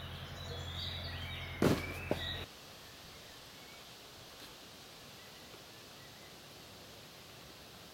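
Woodland birds chirping over a steady low hum. About a second and a half in comes a sharp thud, the loudest sound here, with a smaller one just after. Soon afterwards the sound drops abruptly to a quieter forest background with faint bird calls.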